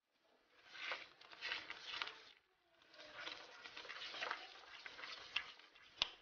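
Wooden spoon stirring a thick béchamel sauce in a pan: faint, in two stretches with a short pause between, and one sharp click near the end.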